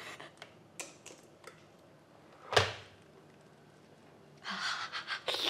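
An electric kettle being handled: a few light clicks and taps, then one sharp clack about two and a half seconds in. Near the end comes a rustling hiss.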